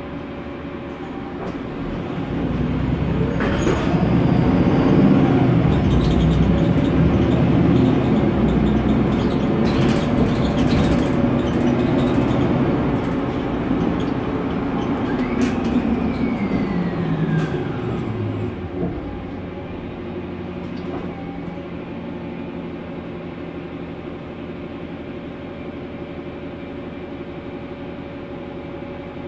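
Cabin noise of a Mercedes-Benz Conecto NGT city bus, from its rear-mounted OM 936G natural-gas engine and Voith automatic gearbox. The noise swells as the bus pulls away and runs loud for several seconds. It then falls away with a downward-gliding whine as the bus slows to a stop, and settles into a steady low idle hum for the last ten seconds.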